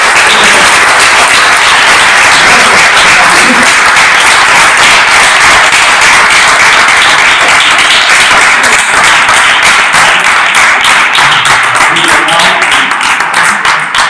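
Audience applauding: a loud, steady mass of hand claps.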